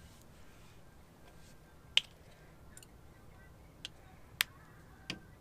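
A few sharp, short clicks, about four of them over the last three and a half seconds, the first about two seconds in the loudest, from hands handling and spreading leg makeup lotion.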